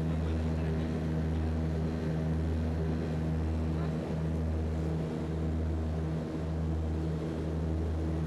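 A skydiving jump plane's engine running in flight, heard from inside the cabin as a steady low drone.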